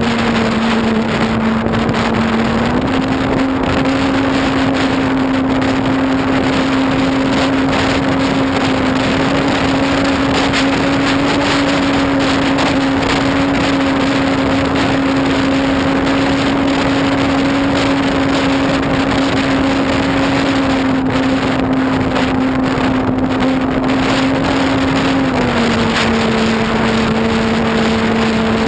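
Electric motor and propeller of a ParkZone F4U Corsair RC plane in flight, heard from a GoPro on its fuselage: a steady droning note that steps up in pitch about three seconds in and drops back near the end as the throttle changes. Wind noise rushes over the microphone throughout.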